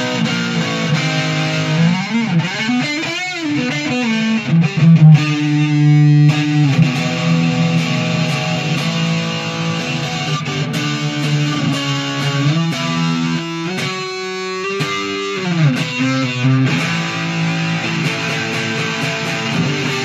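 Junior by K-Van L200 electric guitar played with a distorted rock tone: a lead line of sustained notes with string bends and vibrato.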